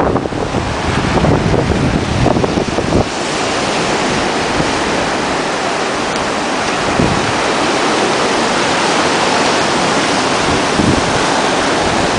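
Sea surf breaking and washing up a sandy beach, a steady even hiss of waves. For the first three seconds or so, wind buffets the microphone with a gusty low rumble.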